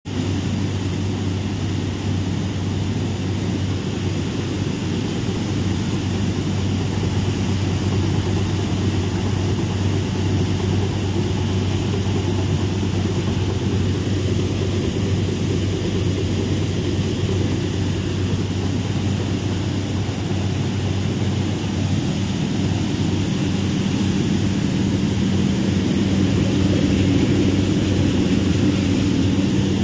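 Paddy cleaning machine running steadily: a continuous low mechanical hum with a dense rattle of the machine and of the paddy grain passing through it.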